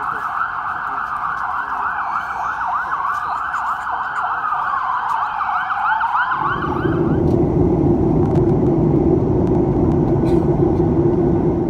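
Emergency-vehicle sirens sounding, a fast repeating yelp with a slower rising and falling wail over it. About six and a half seconds in, they give way abruptly to a steady, loud jet-engine rumble with a hum, heard from inside an airliner cabin.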